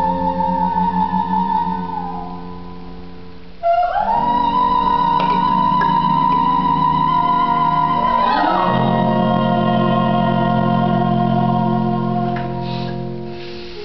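Instrumental background music of long held chords. They glide into new chords about four seconds in and again about eight seconds in.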